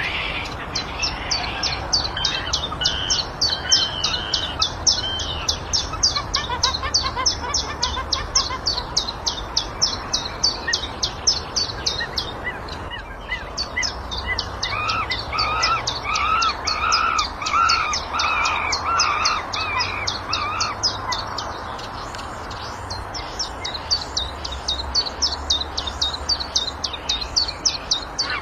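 Birds chirping: a fast run of short high chirps, several a second, with slower warbling calls over them for stretches.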